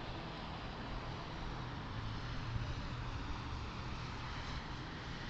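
Steady road and engine noise of a car in motion, heard from inside its cabin: a low rumble under a constant hiss.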